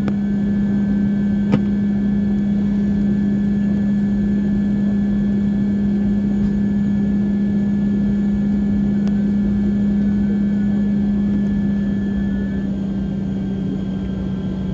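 Turboprop airliner's engine and six-bladed propeller running at low power while taxiing, heard inside the cabin: a steady deep drone with a thin high whine above it.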